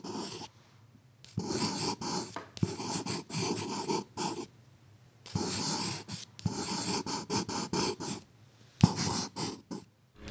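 Scribbling sound of a drawing tool scratching quickly across a surface, in runs of rapid strokes a second or two long separated by short pauses, with one sharp tap near the end.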